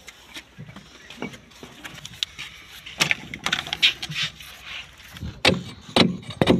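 Masonry work on brick and mortar: scraping and several sharp knocks and taps, loudest in a patch about three seconds in and again near the end.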